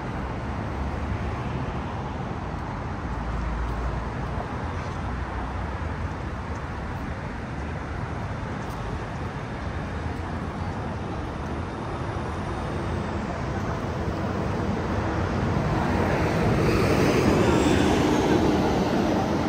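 Steady road traffic noise along a busy city street, swelling louder near the end as a vehicle passes close.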